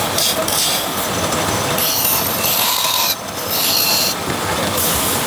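Wooden spindle spinning on a lathe while a hand-held turning chisel cuts into it, giving a run of scraping cuts of about a second each with a brief break about three seconds in, over the steady running of the lathe.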